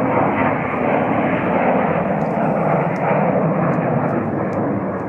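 Large jet airliner passing close by at low speed, its engines making a loud, steady jet noise that begins to ease off near the end.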